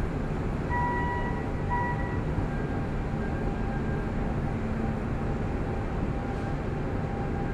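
Steady low rumble of port machinery and engines at a container terminal, with two short high beeps about a second in and a faint steady hum joining after about three seconds.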